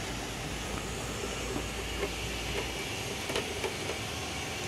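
Steady low rumble and hiss of background noise, with a few faint clicks about three and a half seconds in from a screwdriver prying at the metal case of a CNC controller.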